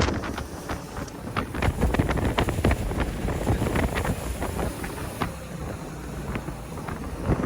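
Wind buffeting the microphone aboard a jet boat under way, over the noise of the boat and the water. It eases off in the middle and gets louder again near the end.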